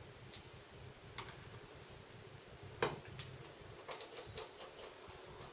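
Light, scattered clicks and ticks of a precision screwdriver picking up tiny screws and driving them into the frame of a Samsung Galaxy Note 2, with one sharper click about halfway through.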